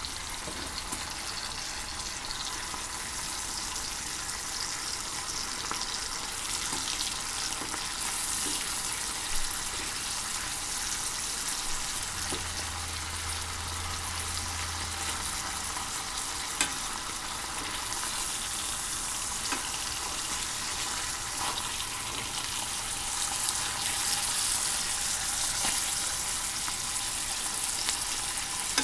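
Food sizzling in a frying pan: a steady hiss with a few sharp clicks, such as a utensil against the pan. A low hum comes in for about three seconds near the middle.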